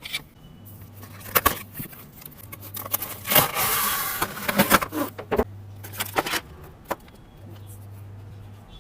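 Handling sounds from unboxing: scattered clicks and knocks, with a rustle of packaging lasting about a second, around three and a half seconds in.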